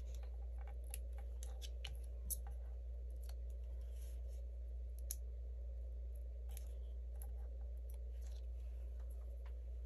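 Faint scattered ticks and light scratches of a pen-style hand tool setting small foam adhesive dots onto cardstock and paper, over a steady low hum.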